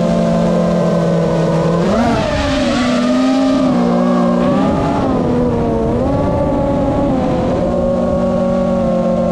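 GEPRC Mark 5 FPV quadcopter's brushless motors whining, the pitch following the throttle. It jumps up sharply about two seconds in, then dips and rises a few times before settling to a steadier whine.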